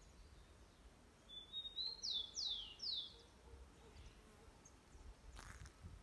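A bird calls once, about a second in: a short level note followed by three quick whistles, each falling in pitch. Under it there is only a faint low rumble.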